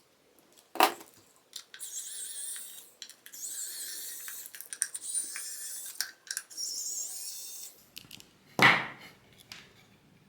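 Plastic case of a security alarm being opened by hand: a sharp click, then about four stretches of high-pitched squeaking and scraping of plastic parts, and a loud clack near the end.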